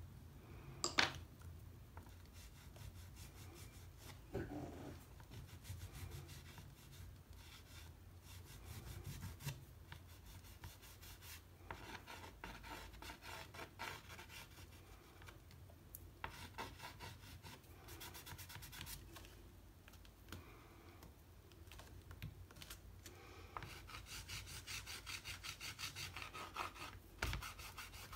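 Soft pastel stick scraping and rubbing across textured watercolour paper in quick back-and-forth strokes: a dry, scratchy rasp that comes in spells with short pauses. There is a single sharp tap about a second in.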